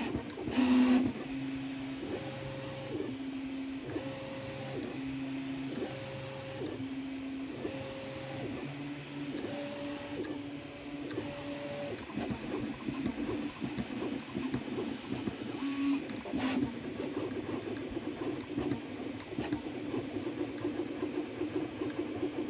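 Original Prusa Mini 3D printer printing: its stepper motors whine in steady tones that switch between a lower and a higher pitch about once a second, then break into a rapid, choppy run of short moves from about twelve seconds in. A short, louder knock comes about a second in.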